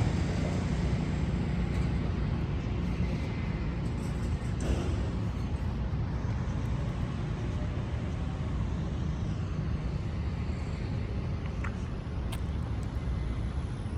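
Steady road-traffic rumble of a city street, with a faint tick or two.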